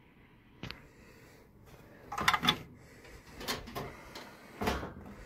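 Knocks and clatters of an old laser power supply being worked loose and pulled out of the engraver's compartment: a sharp click early on, then a cluster of knocks about two seconds in, with more about a second apart after that.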